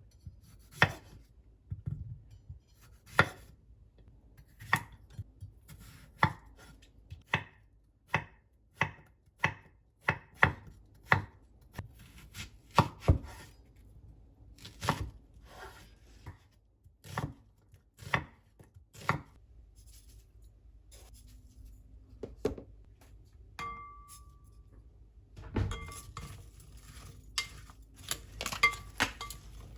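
Kitchen knife cutting cucumber on a cutting board: slow, uneven chopping strokes, roughly one a second, with a few short ringing clinks near the end.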